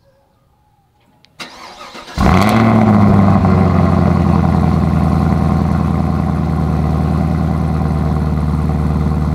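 2018 Chevrolet Camaro ZL1's supercharged 6.2-litre LT4 V8 being started: the starter cranks about a second and a half in, the engine catches with a brief flare of revs, then settles into a steady, loud idle.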